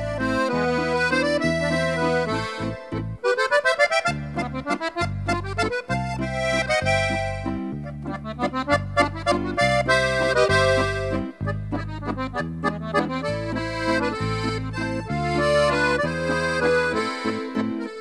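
Waltz music: a flowing melody over a steady bass accompaniment.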